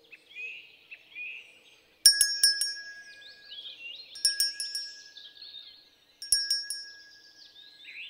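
A bright chime sound effect: a quick cluster of ringing strikes with a held tone, repeating about every two seconds. Faint birdsong chirps run underneath, alone during the first two seconds.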